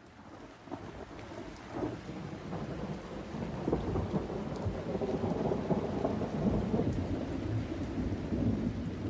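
Rain with rumbling thunder, fading in from near silence and growing steadily louder.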